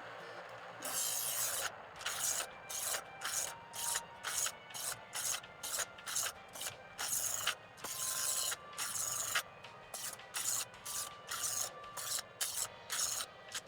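Chef'sChoice 15XV electric knife sharpener running while a dull kitchen knife is drawn again and again through its abrasive slots, a rasping grind with each pass, about two passes a second.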